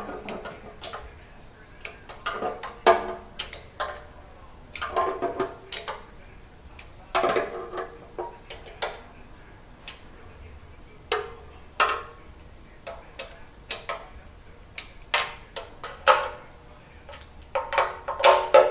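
Hand ratchet clicking in short runs, with light metal clinks, as the oil pan bolts on a Ford 289 V8 are snugged down a little at a time.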